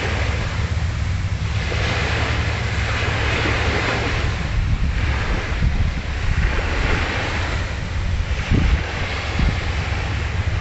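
Small waves washing onto a sandy shore, the hiss swelling and fading about every two to three seconds, with wind rumbling on the microphone.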